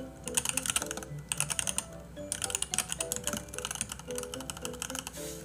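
Fast typing on a computer keyboard, in three quick bursts of key clicks, over background music with steady held notes.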